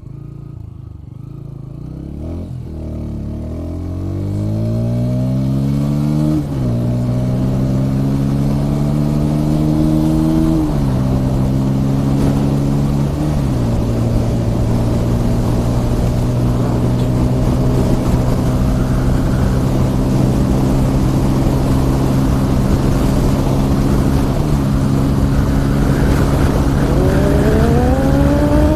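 Bajaj Pulsar P150's single-cylinder engine pulling away and accelerating through the gears: its pitch climbs and drops sharply at each of three upshifts in the first half, then holds steady at cruising speed.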